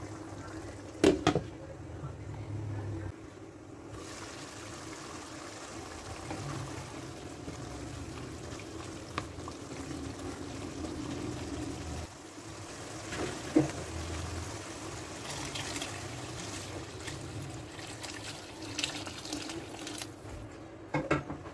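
Meat and masala being stirred with a wooden spoon in a nonstick wok, with a few sharp knocks of the spoon against the pan. Toward the end, water is poured into the pan.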